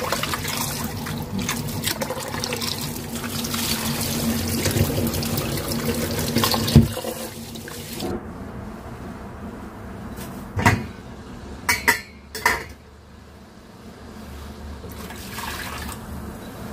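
Tap water running into a steel pot while rice is rubbed and rinsed in it by hand, with a knock against the pot. About eight seconds in the water sound stops, and a few sharp knocks and clatters of pot and lid follow.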